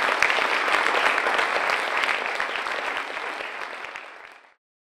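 Audience and panel applauding, a dense patter of many hands clapping that thins out and then cuts off abruptly about four and a half seconds in.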